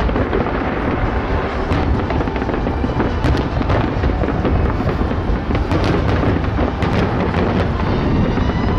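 Many fireworks going off at once in a dense, continuous barrage of overlapping bangs and crackles, with a few whistles near the end.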